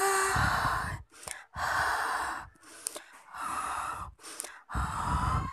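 A series of short, breathy gasps, about five in quick succession, each lasting under a second. A brief voiced sound trails off just as they begin.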